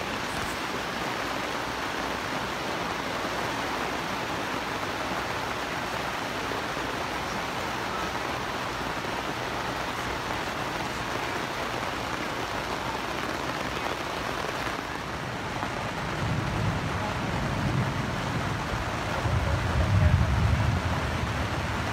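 Steady rain falling on the canvas roof of a bell tent, heard from inside the tent. A low rumble of thunder builds about two-thirds of the way in and is loudest near the end.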